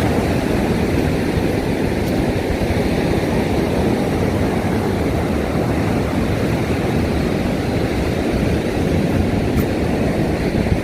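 Pacific Ocean surf washing onto the beach: a steady, loud rushing noise that is heaviest in the low range.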